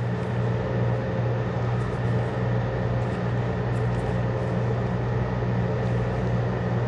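A steady low machine hum with a faint higher steady tone above it.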